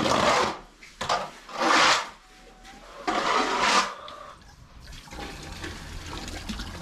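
Water splashing and gushing in four surges about a second and a half apart, then running more steadily and quietly.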